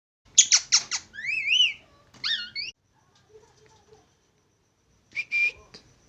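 Plum-headed parakeet calling: a few sharp, quickly falling squawks, then wavering whistled notes that rise and fall, and another short call about five seconds in.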